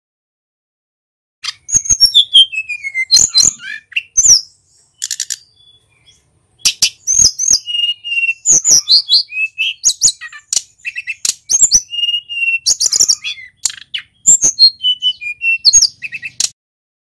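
Male sulingan gunung songbird singing a rapid, varied song of high chirps, whistles and falling slurred notes. The song begins about a second and a half in, breaks briefly near the six-second mark, and stops shortly before the end.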